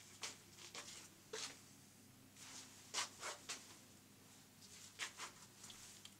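Faint, short rustles of a jacket's fabric as a man shifts and turns in front of a mirror. The rustles come in small clusters about a second in, around three seconds and again around five seconds.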